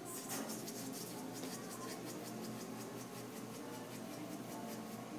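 A cockatoo flapping its wings in its cage, a rapid feathery flutter. It is densest in the first two or three seconds, then thins to scattered flaps.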